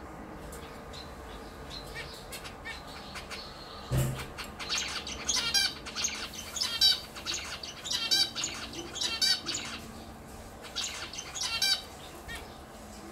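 Male zebra finch singing: bouts of short, repeated notes that start after a sharp thump about four seconds in and stop about a second before the end, with a few faint chirps before the song.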